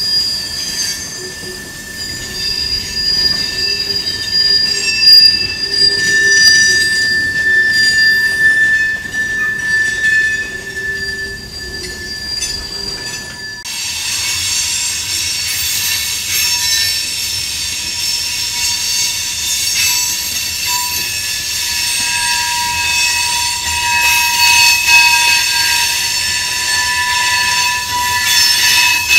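Freight car wheels squealing as a long train of tank cars and covered hoppers rounds a tight curve, several steady high-pitched squeals over the rumble of the rolling train. About halfway through, the squeal changes abruptly to a different set of tones.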